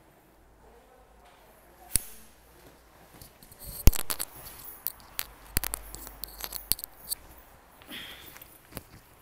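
Handling noise from a phone being carried and moved about: rustling with a string of sharp clicks and knocks, the loudest about four seconds in.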